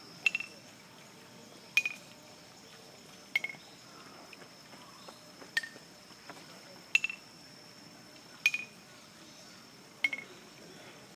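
Hollow bamboo being struck: seven sharp knocks about a second and a half apart, each ringing briefly at a clear pitch, stepping down through four notes and then repeating the falling pattern. A faint steady high whine runs behind.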